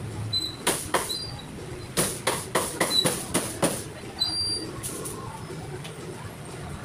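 Cleaver chopping on a chopping block: sharp knocks in quick runs of about three a second, busiest from about two to four seconds in.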